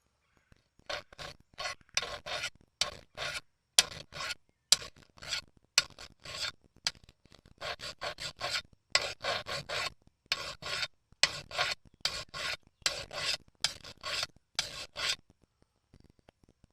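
Hand flat file being drawn lightly across the bar mounting face of a McCulloch 3516 chainsaw, about two strokes a second, stopping near the end. The face is being dressed flat where the chain gouged it, so the bar seals and the saw stops leaking oil.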